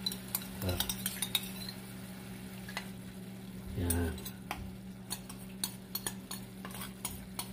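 A metal spoon scraping and clinking against a bowl as the last of a curry sauce is scraped out into a pan of simmering tomato sauce. A steady low hum runs underneath.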